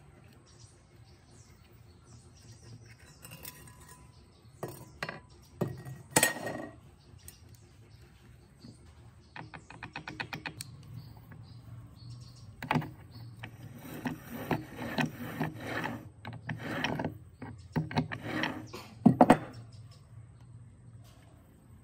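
Metal saw parts and hand tools clinking, knocking and scraping against one another, with a quick run of clicks about ten seconds in and denser clattering over the second half.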